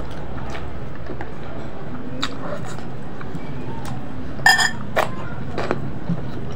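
Eating at a table by hand: a few soft clicks, and about four and a half seconds in one ringing clink of a plate or dish being touched, over a steady background hum.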